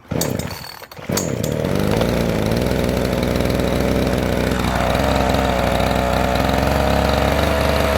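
Petrol chainsaw pull-started, catching about a second in and then running steadily with its choke pushed in. Its note shifts about halfway through.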